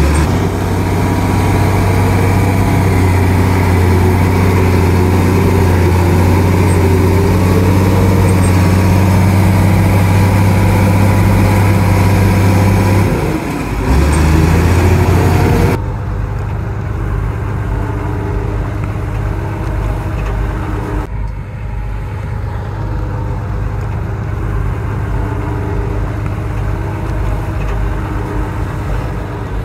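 Crawler bulldozer's diesel engine running steadily with a strong low drone while it works. A little before halfway it dips for a moment and picks up again. After that the sound turns quieter and duller for the rest.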